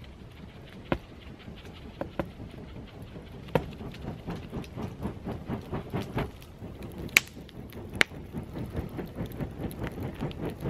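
A campfire being fanned with a foam kneeling pad: from about four seconds in, rhythmic whooshes of air, about three a second, with a few sharp snaps from the burning wood.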